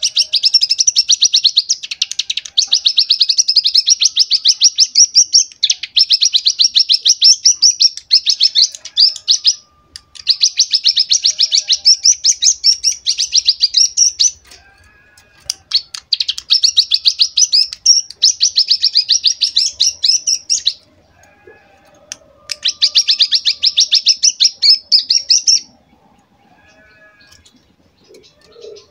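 A young cigun (prinia) singing a rapid, buzzy rattle in four long runs of several seconds each, separated by brief pauses. This is the 'ngebren' machine-gun-like rattle copied from cicada song that the bird has been tutored to imitate.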